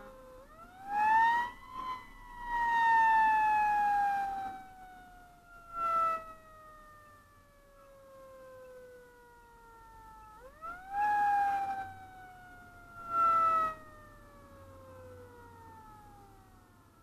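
A fire engine's mechanical siren winds up quickly to a high wail and then slowly coasts down in pitch, twice. Several short, loud blasts sound over it.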